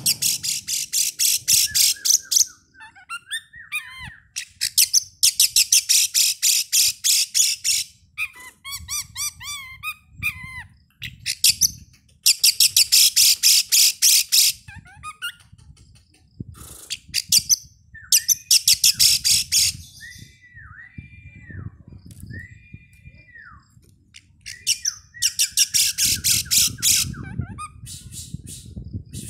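Oriental magpie-robin (kacer) singing: five loud runs of rapid, chattering repeated notes, each two to three seconds long, alternating with shorter phrases of clear slurred whistles.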